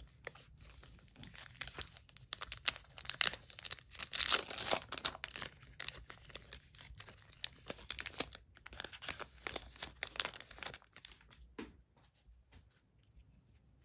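A Yu-Gi-Oh booster pack's foil wrapper being torn open and crinkled by hand: a dense crackling rustle, loudest about four seconds in, that dies away near the end as the cards come out.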